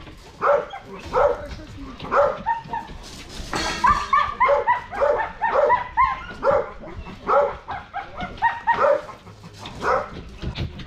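Dog barking excitedly over and over in short, high barks, two or three a second at the busiest.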